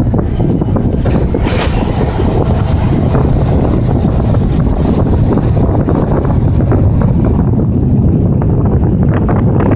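1990 Ford Bronco XLT driving off-road: its engine running as a loud, steady low rumble, with scattered knocks and rattles.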